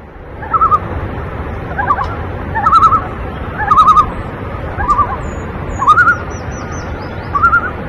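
Common loons giving their quavering tremolo call, several short wavering phrases about a second apart, more than one bird calling.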